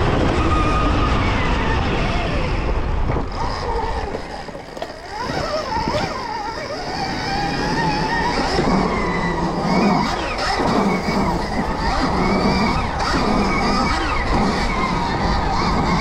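Stark Varg electric motocross bike riding, its electric motor whining with a pitch that glides up and down as the throttle opens and closes. The sound dips quieter about four seconds in, then picks up again.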